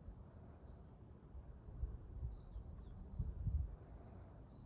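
A small songbird calling with short, high chirps, three of them about two seconds apart, over a faint steady high tone. Low rumbling bumps run underneath and are loudest a little past three seconds in.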